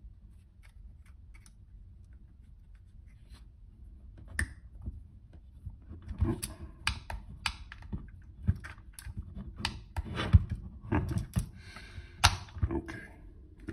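Handling of a Wollensak stereo camera during film loading: irregular small clicks from its knobs and the film, with short bits of scratchy rustling. It starts with a few faint ticks and gets much busier about six seconds in, as the film is wound back to tighten it.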